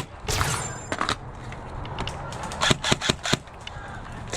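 Airsoft guns firing: sharp snapping shots, with a hissy burst about half a second in and a quick string of about five shots around three seconds in.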